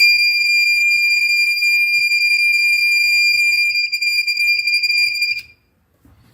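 Buzzer of a homemade fire detector alarm going off: one steady high-pitched tone for about five seconds, then cutting off suddenly.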